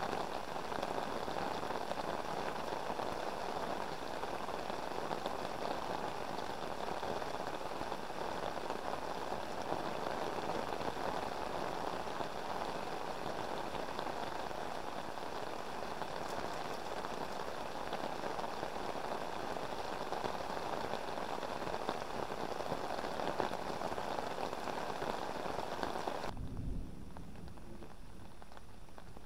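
Heavy rain pattering steadily on a fishing umbrella close overhead and on the river surface. About three seconds before the end it stops abruptly, leaving a quieter hiss after a brief low rumble.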